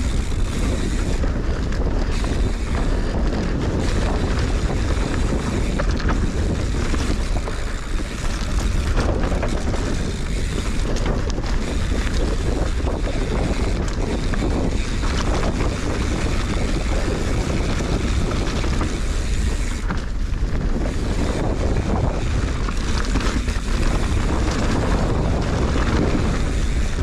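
Wind buffeting an action camera's microphone during a mountain-bike enduro descent, a steady loud rumble, with the tyres and bike rattling and clattering over rough trail.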